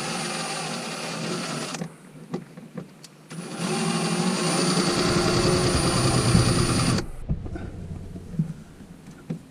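Cordless drill driving a screw in two runs: a short one of about two seconds, then a longer, louder one of about three and a half seconds that stops abruptly, with a few small clicks in between.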